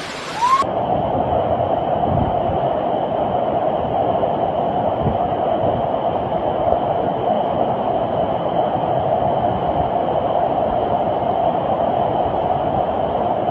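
Fast-flowing floodwater rushing in a steady, unbroken roar.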